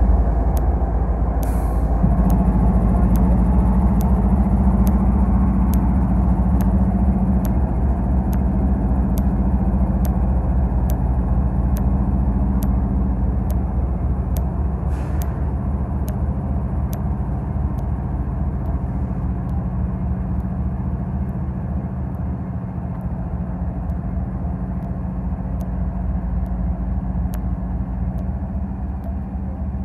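Diesel-electric freight locomotive's engine running as it moves slowly along the track: a steady low drone that fades gradually toward the end, with a faint regular ticking above it.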